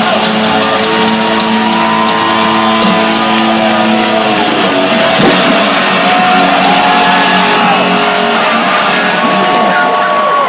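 Live rock band playing loudly at the end of a song, long held notes bending slowly in pitch over sustained electric guitar chords, heard from within a stadium crowd.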